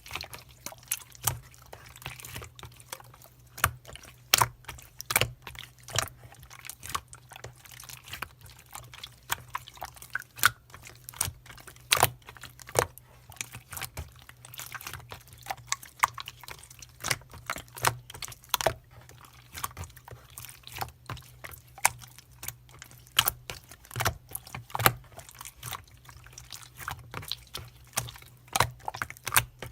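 Close, irregular sharp clicks and small wet crackles, several a second, over a steady low hum.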